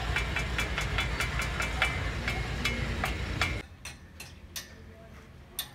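A heavy truck's engine runs steadily with a regular metallic ticking over it. About three and a half seconds in the sound drops away abruptly, leaving a quieter background with scattered clicks.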